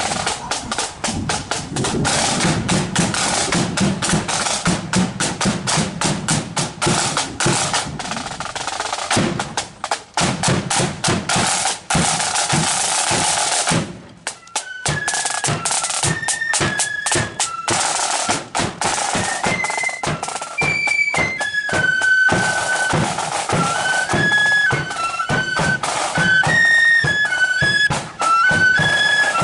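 Marching flute band: snare drums beating rolls with a bass drum for about half the time, then a short break and the flutes come in, playing a high melody over the drum beat.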